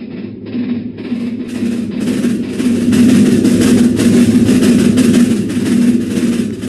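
Ceiling fan running badly off balance on a broken blade, wobbling with a steady low hum and a regular knock about three times a second. It builds up over the first few seconds, then eases off a little.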